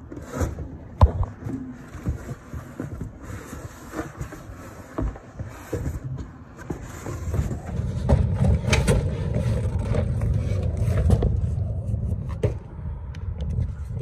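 Knocks and clanks of climbing a metal ladder, then cardboard boxes scraping and rubbing as they are handled and dragged on a rooftop, with a steadier low rumbling scrape from about eight seconds in.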